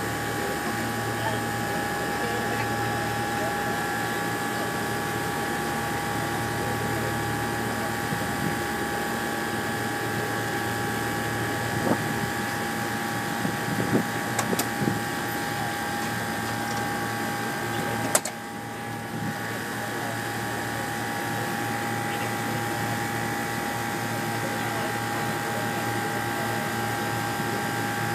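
Passenger ferry's engines running with a steady drone and a constant high whine. A few sharp clicks near the middle.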